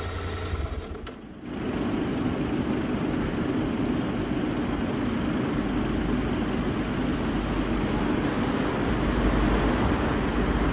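Motorcycle running along a road: a steady engine-and-road noise that comes in about a second and a half in after a brief lull.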